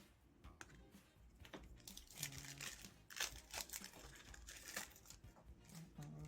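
Faint crinkling and rustling: a trading card pack wrapper and cards being handled and opened.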